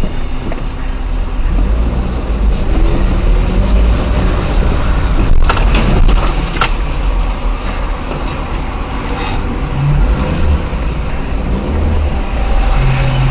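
Traffic and engine rumble picked up by a dashcam microphone inside a car, with a sharp knock and clatter about five to six seconds in as a motor scooter strikes the side of a car and goes down.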